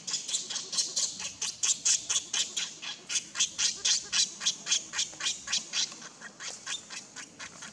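Baby macaque crying: a rapid string of short, high-pitched squeals, about four a second, starting suddenly and growing weaker near the end.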